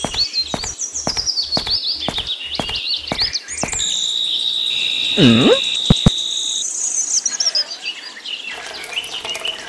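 Birds chirping over insects chirring, with a regular ticking at about two a second for the first few seconds. About four seconds in, a steady high whistle-like tone lasts nearly three seconds, with a quick falling-then-rising swoop and two sharp clicks partway through.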